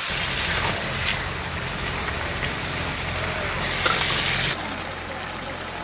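Leafy greens and fish frying in hot oil in an iron kadai, a steady sizzle that drops suddenly about four and a half seconds in.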